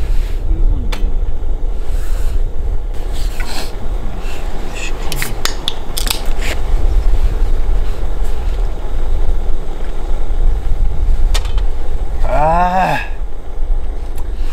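Scattered knocks and scrapes over a steady low rumble, with a short vocal grunt or exclamation near the end.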